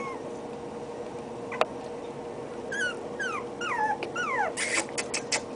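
Young puppies whimpering: a run of about five short, high whines, each falling in pitch, in the middle, followed by a quick cluster of sharp ticks near the end.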